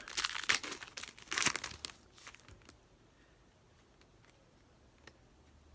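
Trading-card pack wrapper being torn open and crinkled: dense crinkling for about the first two seconds, then a few faint light ticks.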